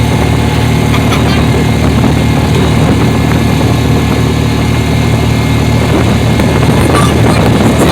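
Side-by-side utility vehicle's engine running steadily while driving, with a noisy rush over it.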